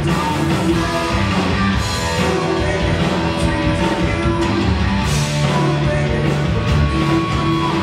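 Heavy metal band playing live at full volume: electric guitar, bass guitar and a drum kit with cymbals.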